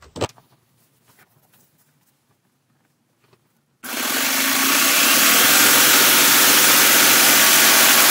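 Baby Lock Imagine serger running at speed, stitching a three-thread rolled edge along fabric: a loud, steady mechanical run that starts suddenly about four seconds in, after a few faint handling clicks.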